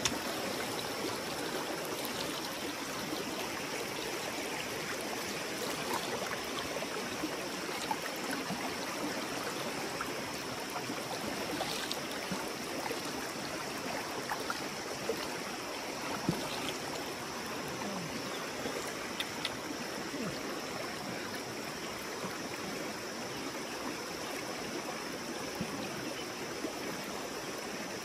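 River water running steadily, with a few short clicks in the middle.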